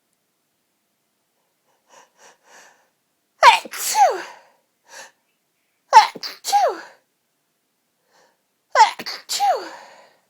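A woman sneezing three times in a fit, about two and a half seconds apart, after a few faint short breaths. Each sneeze is a sharp burst followed by a voiced cry that falls in pitch.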